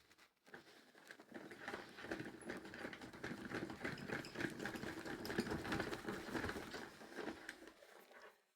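Washing machine drum with worn bearings spinning, making a fast rattling, grinding rumble that builds up and then dies away near the end.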